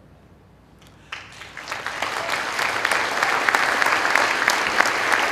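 Audience applause: clapping breaks out about a second in and swells to steady, dense applause from a large hall crowd.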